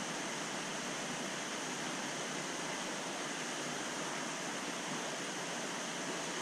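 Steady rushing of water from the 1800-gallon aquarium's circulation, as the filter return churns the surface into bubbles.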